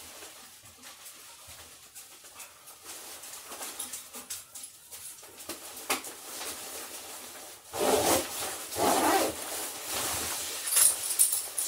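Dogs (a Labradoodle and a Golden Retriever) whining with excitement as they wait to be leashed for a walk, two loud whines about eight and nine seconds in, after a stretch of faint clicks and shuffling.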